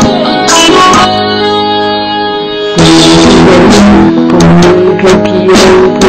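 Band music led by guitar with a steady beat. The drums drop back for about two seconds near the start and the full band comes back in about three seconds in.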